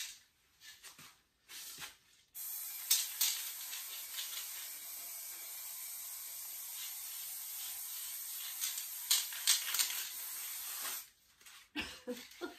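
Aerosol spray-paint can spraying onto a metal panel: one long steady hiss of about eight seconds that starts a couple of seconds in and cuts off near the end.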